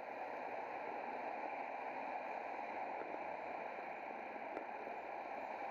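Steady rushing noise of riding a bicycle: wind and rolling noise picked up by a camera mounted on the moving bike.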